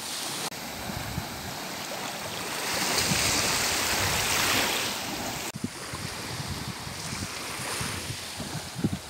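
Small waves breaking and washing up a sand beach, a steady surf hiss that swells loudest in the middle, with wind rumbling on the microphone.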